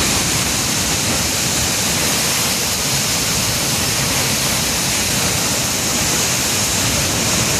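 Tuttle Creek Dam's outlet tube releasing about 21,400 cubic feet per second: a loud, steady rush of churning white water and spray.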